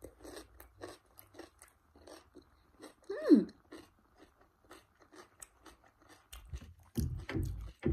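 Close-up crunchy chewing of raw cucumber: a run of crisp crunches, about two or three a second. About three seconds in comes a short falling hum from the eater, and near the end some low thuds.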